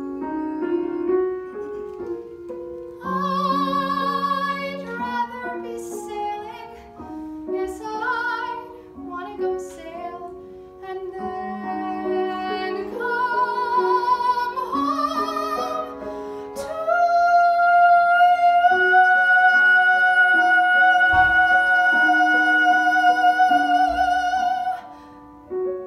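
A woman singing a musical-theatre song with vibrato, accompanied by grand piano. About two-thirds of the way through she holds one long high note, the loudest part, for about eight seconds before it stops near the end.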